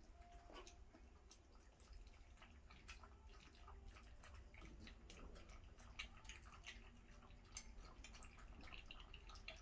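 A litter of miniature schnauzer puppies lapping goat's milk from a stainless steel puppy feeding saucer: faint, quick, irregular wet clicks and laps.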